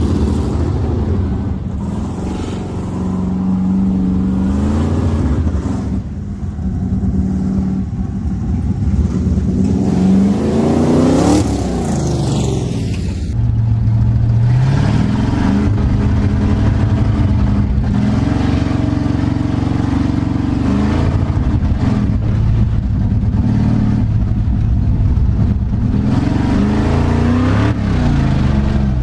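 Squarebody Chevy pickup's engine revving hard during doughnuts on grass, its pitch climbing and dropping back again every few seconds.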